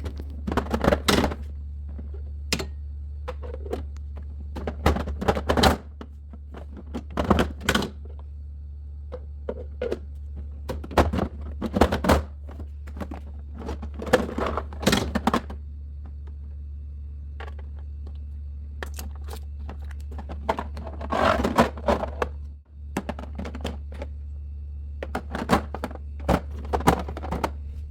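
Plastic storage containers and lids being handled and set down: a string of irregular clicks and knocks, over a steady low hum.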